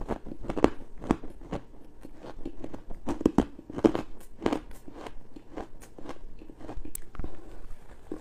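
Close-miked bites and chewing of squeaky freezer frost: an irregular run of sharp, crisp crunches, two or three a second.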